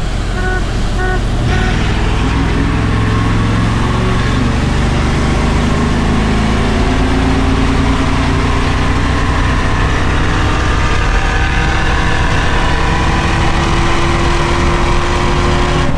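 Chevrolet Blazer's V8 pulling at full throttle from a standing start, its pitch climbing slowly and steadily through a long run. A few short beeps sound just before the engine opens up, about a second and a half in.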